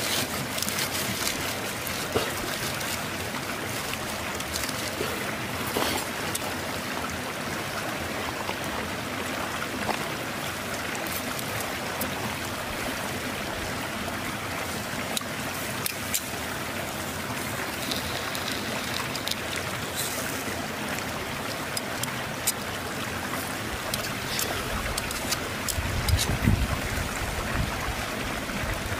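Beef steak sizzling on a fire-heated river stone: a steady hiss with scattered crackles and pops. Near the end come a few dull bumps as the meat is handled.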